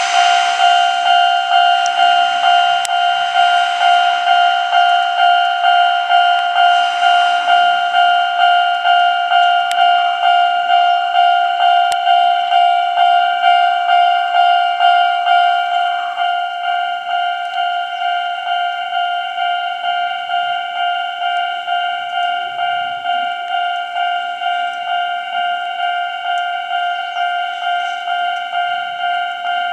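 Japanese level-crossing alarm ringing its electronic bell tone over and over, about twice a second, getting quieter about halfway through. In the first several seconds a train's rushing running noise lies under it and fades away.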